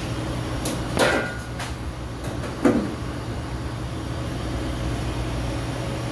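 Steady low hum of running refrigeration machinery, with a ringing metallic clink about a second in and a sharp knock near the three-second mark.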